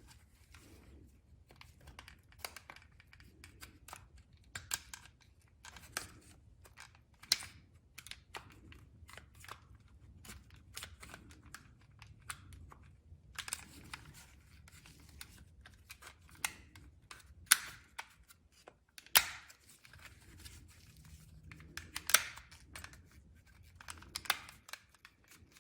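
Plastic tabs of a Lexus RX master window switch housing being pried loose with a plastic trim tool: scattered faint clicks and scrapes, with a few louder clicks as clips let go.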